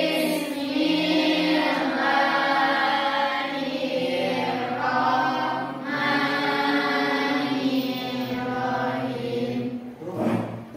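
A class of students chanting a prayer together in unison, in long drawn-out sung phrases with short breaks between them.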